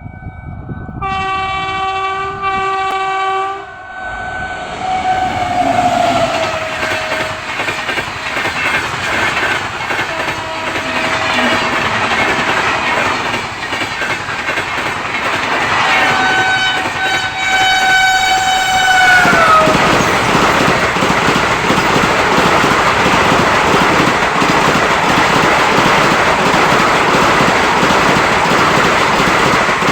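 A train's horn blows a chord about a second in and again about halfway through, the second blast sagging in pitch as it ends. Between and after the blasts the rumble and wheel clatter of the train grow loud and stay loud as it runs close by.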